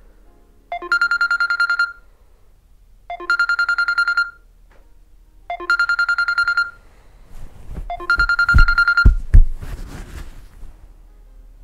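Mobile phone ringtone: a trilling ring sounding four times, each ring about a second long and about two and a half seconds apart. Near the end come rustling and a few dull thumps as the phone is reached for on the bed.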